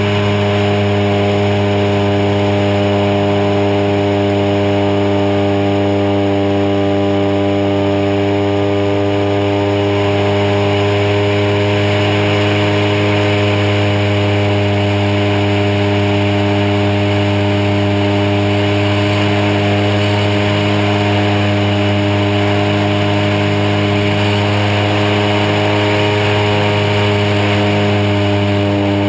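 The DA-100 twin-cylinder two-stroke petrol engine of a 40% scale RC Super Cub float plane running steadily at cruise throttle in flight, with the drone of its spinning propeller, close to an onboard camera.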